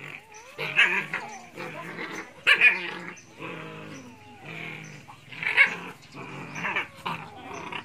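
An animal calling in repeated, uneven cries, loudest about a second in, at two and a half seconds and near five and a half seconds.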